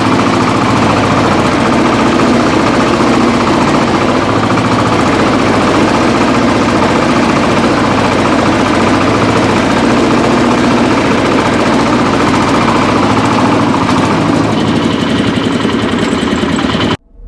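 Shifeng-240 belt-drive mini tractor's engine running steadily under load while it pulls a two-bottom plough through heavy, compacted soil. The sound cuts off abruptly near the end.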